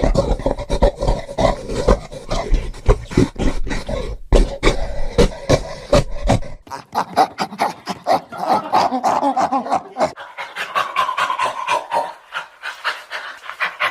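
Ape call sound effects: rapid, rough grunting and panting over a heavy low rumble, then an abrupt cut about halfway through to a thinner recording of higher pitched ape calls with one drawn-out call later on.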